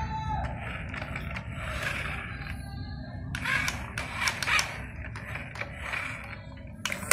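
Toy RC dump truck's small electric motor and plastic gearbox whirring as it drives over a tile floor. There is a louder clattering, clicking stretch in the middle.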